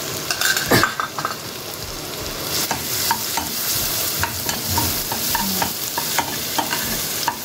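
Chopped garlic sizzling in hot oil in a non-stick kadhai, with a steady hiss, stirred with a metal slotted spatula that clicks and scrapes against the pan again and again.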